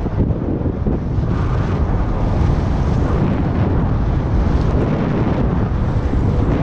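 Wind buffeting an action camera's microphone while cycling at road speed: a steady, loud, low rush with no clear tones.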